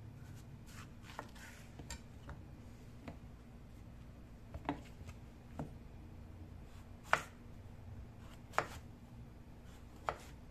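Kitchen knife cutting on a cutting board in single, separate strokes: light, irregular ones at first, then three louder chops about a second and a half apart in the second half.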